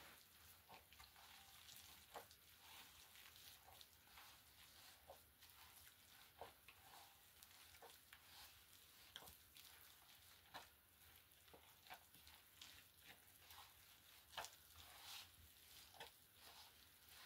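Near silence: faint hiss with scattered soft clicks and rustles at irregular intervals.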